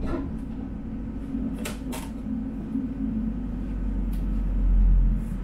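Tram running, heard from on board: a steady low rumble with two sharp clicks close together about two seconds in, and the low rumble swelling near the end.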